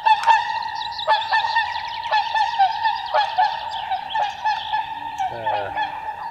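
A flock of geese honking in flight, many short calls overlapping and repeating without a break.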